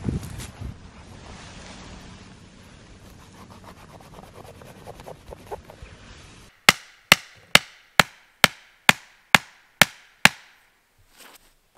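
A wooden stake being driven into the ground for a tarp line: nine sharp, evenly spaced wooden knocks, a little over two a second, that stop about a second and a half before the end.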